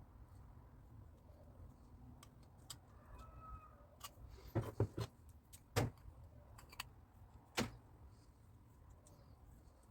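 Scattered small clicks and a handful of sharp knocks from handling the parts of a stainless steel whisk and a strainer during a repair: three knocks close together about halfway through, then two more spaced about a second apart.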